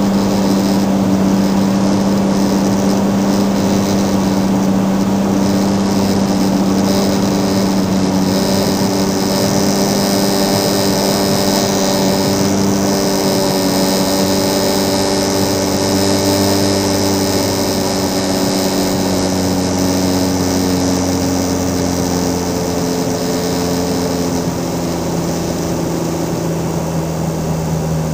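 Cirrus SR22's six-cylinder Continental piston engine and propeller droning steadily, heard inside the cabin on final approach. The pitch sags gradually through the middle and drops lower near the end as power is reduced for landing.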